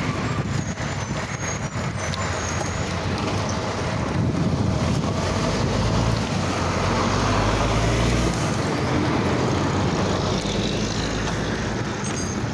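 Road traffic noise heard from a moving bicycle, with a low rumble that swells about six seconds in and eases a couple of seconds later.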